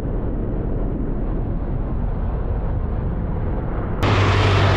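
Steady, muffled rush of wind and road noise from a motorcycle moving at highway speed. About four seconds in, the sound switches abruptly to a louder, brighter rush with a steady low hum.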